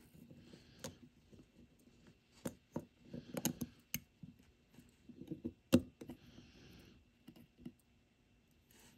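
Small irregular clicks and taps of steel tweezers and a fingertip working the metal battery clasp and plastic spacer of a Fossil FS-4487 quartz movement, pressing the clasp back down over the new SR920SW battery. The sharpest click comes a little after halfway, followed by a brief scrape.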